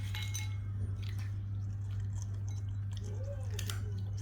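An African grey parrot's beak crunching and clicking, with a few sharp clicks and a short soft murmur about three seconds in, over a steady low hum.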